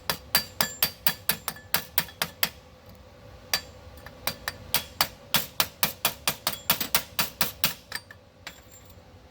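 Hammer rapidly striking a steel exhaust pipe, about four metallic blows a second with a ringing note. It pauses briefly about three seconds in and stops near the end. This is typical of chipping slag off a fresh flux-core weld.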